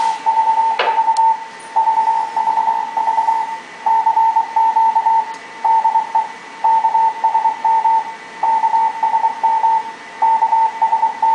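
Morse code from a 1959 RCA H-set shortwave transmitter, heard as a keyed tone of about 900 Hz through a receiver: groups of dots and dashes with short gaps. The owners describe the note as raspy, like 120 Hz line-hum modulation, and suspect the screen or final bias supply of the final amplifier.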